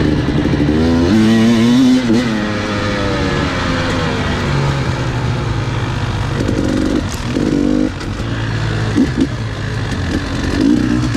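Two-stroke enduro motorcycle being ridden, its engine revving up and down with the throttle. A long rise and fall comes early, then several short throttle blips in the second half.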